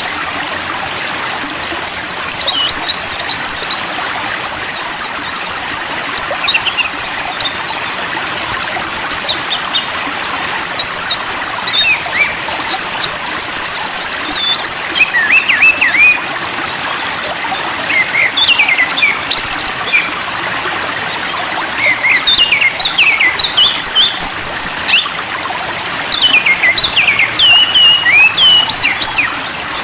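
Songbirds chirping and calling in quick, varied clusters of short, high, pitch-sliding notes over a steady hiss.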